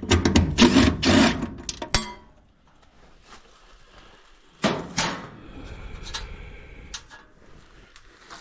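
Tool and metal handling noise while a furnace draft inducer motor's mounting screws come out: dense rattling and clicking for about two seconds, then a sharp clatter about halfway through, followed by lighter knocks and scraping.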